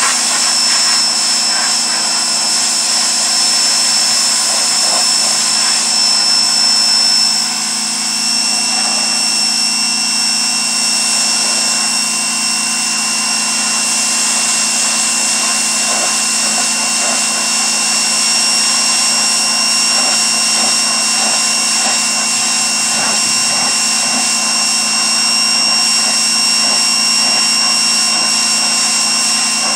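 Pressure washer running steadily, with a high motor whine over the hiss of its spray blasting the car's engine bay.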